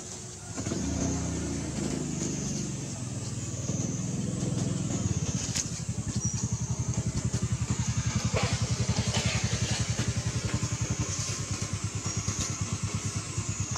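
A small engine running, starting about half a second in and settling into a rapid, even chugging pulse.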